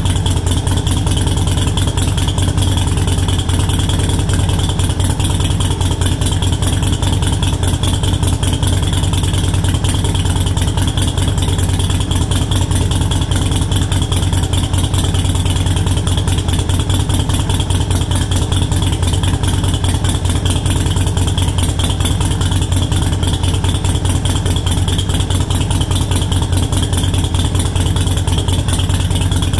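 Harley-Davidson Sportster Iron 883's V-twin idling steadily through a Cobra Speedster Short exhaust, its idle lowered to 800 rpm by a Vance & Hines Fuelpak FP3 tune.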